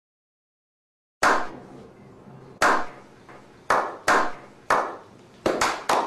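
A slow clap: after about a second of silence, single hand claps ring out a second or so apart, then come closer and closer together as more hands join in near the end.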